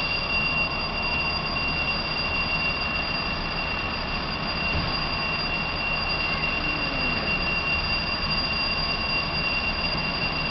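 Fire engine's diesel engine running at idle, a steady low rumble with a steady high-pitched whine on top, amid wet-street city noise.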